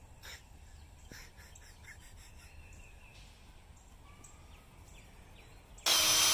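Quiet outdoor ambience with a few faint bird chirps, then near the end a DeWalt 20V cordless drill starts up and runs with a steady whine as it drills a pilot hole into a wooden fence post.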